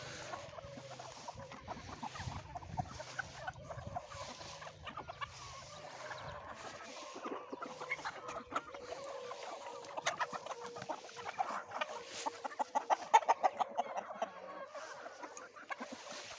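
A large flock of chickens clucking all together, many short overlapping calls, growing busier and louder in the second half.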